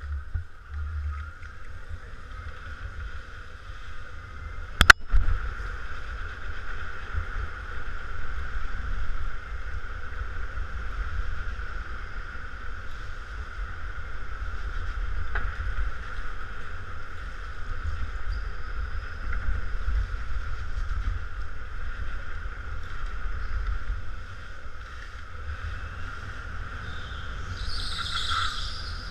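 Go-kart running on an indoor track, heard onboard: a low rumble of vibration and wind on the mounted camera under a steady whine. A single sharp knock comes about five seconds in, and a brief high squeal near the end.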